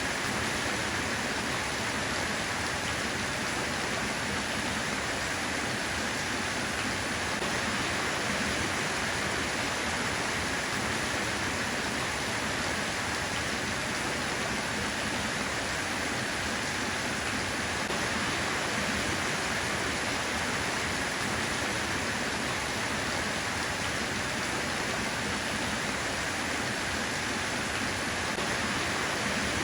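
Steady rain falling: an even hiss with no separate drops standing out and no letup.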